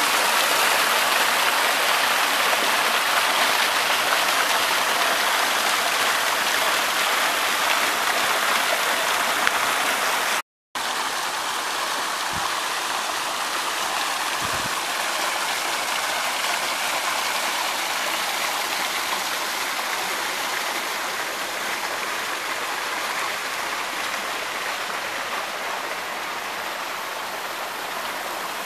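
Small waterfall running high after several days of heavy rain, pouring off a rock ledge and splashing onto the rocks below: a steady rush of falling, splashing water. It cuts out for a moment about a third of the way in, then goes on a little quieter.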